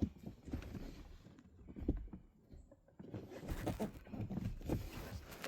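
Soft handling noises as the shift boot is worked up around the G56 manual gearbox's shift lever: scattered light rustles and small knocks, busier in the second half.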